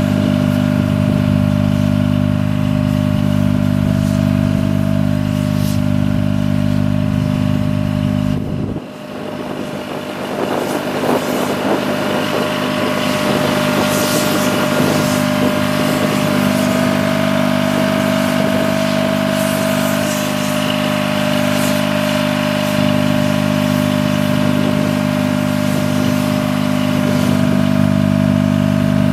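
A machine engine running steadily at constant speed, with a steady whine over it, as the IMT 18026 hydraulic crane is worked. About nine seconds in the sound dips briefly and the deepest rumble falls away.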